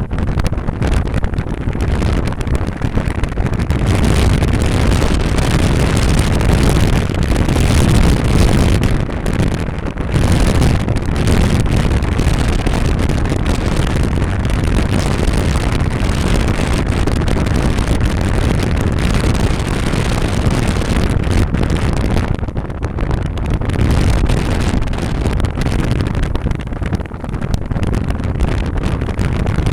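A car driving along: a steady rumble of engine, tyres and wind.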